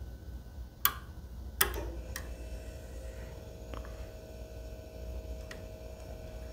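Lock pick and tension wrench working in a Medeco pin-tumbler cylinder: two sharp small metallic clicks about a second and a second and a half in, then a few faint ticks.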